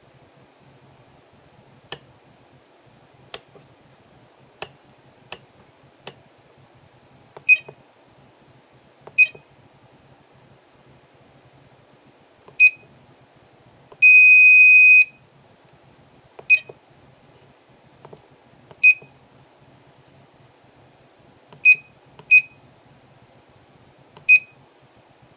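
Key beeper of a marine fish finder's control panel: a few faint clicks of buttons being pressed, then a string of short high beeps as keys are pressed, about nine in all, with one longer steady beep of about a second near the middle.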